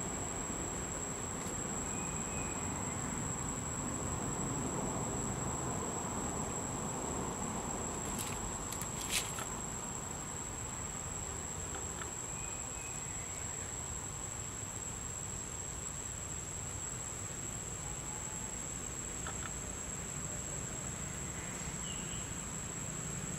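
Steady, high-pitched insect trill, one unbroken tone, over a faint outdoor hiss, with a few faint short chirps and a single sharp click about nine seconds in.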